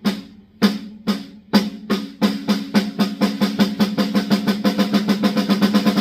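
Snare drum struck about twice a second, speeding up steadily into a fast drum roll: a build-up in live band music.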